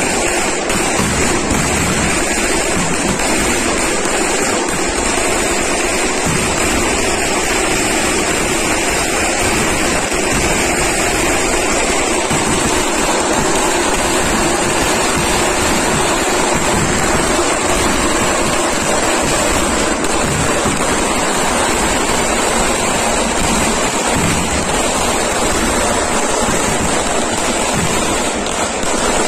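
Massed fireworks barrage of aerial shells and ground fountains going off together. The many explosions merge into one steady, unbroken rush of noise, with no separate bangs standing out.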